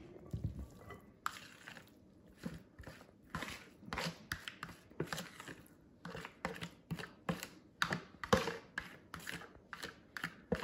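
A spatula scraping and knocking against a mixing bowl in repeated, irregular strokes as wet pasta and vegetables are scraped out of it.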